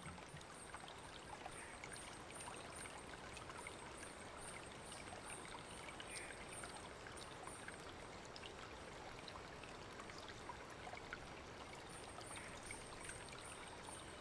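Faint flowing water of a stream, a steady rushing with small scattered splashes, and a faint high-pitched pulse repeating about twice a second above it.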